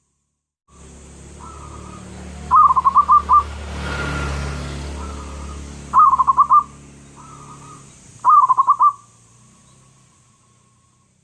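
Zebra dove (perkutut) cooing: three bursts of rapid staccato coos, each a quick run of five or six notes lasting under a second, with softer drawn-out notes between them, over a low steady hum.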